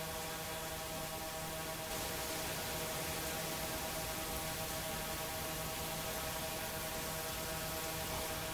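A steady hum at one fixed pitch with a row of overtones, over a faint hiss.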